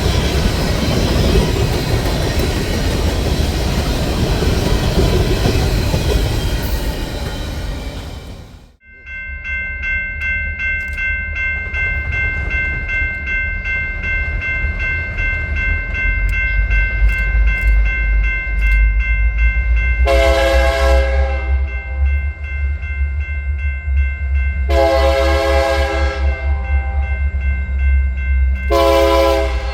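A train passing close by with steady wheel-and-rail noise, which cuts off abruptly. Then an approaching locomotive rumbles over a steady high ringing tone, and its multi-chime horn sounds two long blasts and starts a third near the end: the grade-crossing horn signal.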